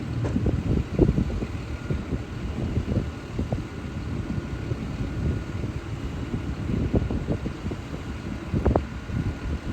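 Self-propelled potato harvester running: a steady low rumble broken by frequent irregular knocks and thuds.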